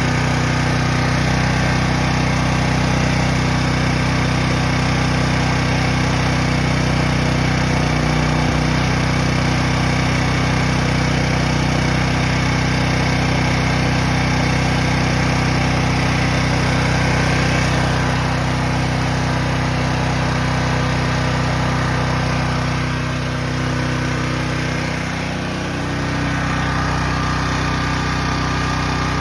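Briggs & Stratton Storm Responder 6250 portable generator engine, converted to tri-fuel, running steadily. Its speed wavers briefly about eight seconds in, then sags and recovers near the end, settling at a slightly different note.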